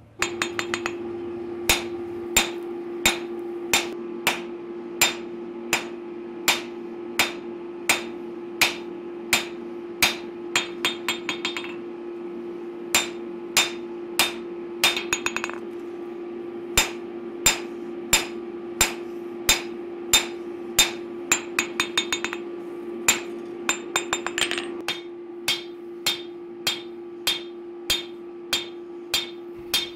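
Hand hammer striking a hot steel bowie knife blade on an anvil, forging the bevels. The blows come at a steady pace of about three every two seconds, broken by several quick flurries of light taps, over a steady shop hum.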